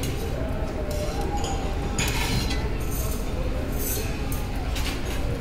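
Metal tongs and a perforated slotted spoon clinking against a steel pan of jalebi in sugar syrup, several separate clinks from about two seconds in, over a steady low rumble.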